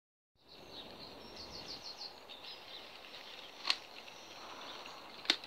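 Faint outdoor ambience with a bird chirping: a quick run of about five notes between one and two seconds in, then scattered single chirps, and two sharp clicks, the second near the end.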